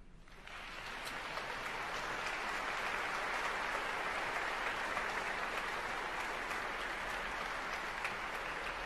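A concert-hall audience applauding, the clapping building up over the first second or so and then holding steady.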